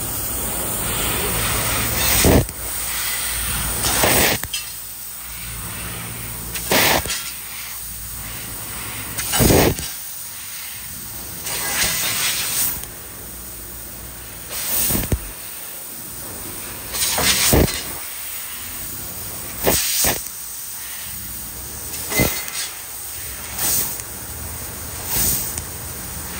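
CNC laser cutter cutting a pattern of openings into a steel door-skin sheet: a steady hiss with louder rushing surges about every two seconds.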